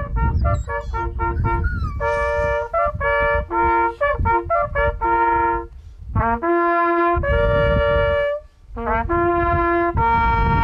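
Hunting horns blowing a brass fanfare: runs of quick short notes, then longer held notes, in several phrases with brief breaks between them. This is the horn call that honours the game laid out at the end of a hunt.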